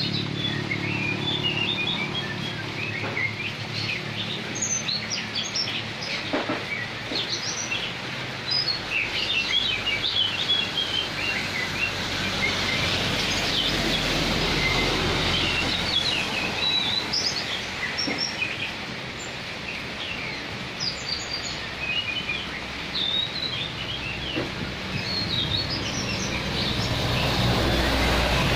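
Many small birds chirping over a steady hiss of falling rain. Near the end a light truck's engine grows louder as it drives past on the wet road.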